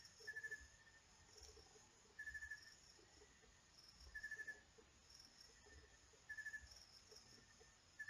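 Near silence with faint, short trilled chirps repeating about once every two seconds.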